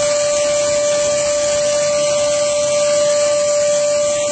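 Small wet/dry shop vacuum running steadily, a constant motor whine over the hiss of air rushing through its hose as it sucks along carpet.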